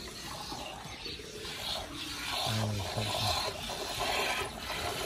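Buffalo being milked by hand: rhythmic squirts of milk, about two a second, making a rasping hiss.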